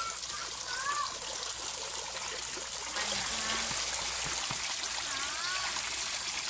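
Pond water trickling and splashing in a steady rush, stepping up louder about three seconds in.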